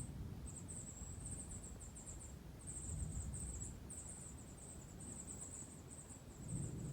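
Insects chirping in rapid pulsed trains, high-pitched and repeating without pause, over a low rumble.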